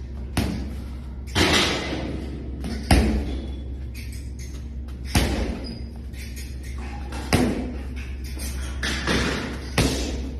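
A boxer's hard punches landing, about seven heavy thumps at uneven intervals, one every one to two seconds, over a steady low hum.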